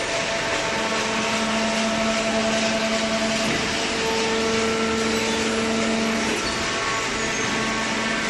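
Vertical hydraulic baler's electric motor and hydraulic pump running steadily, a constant machine hum with a whine over a wash of noise.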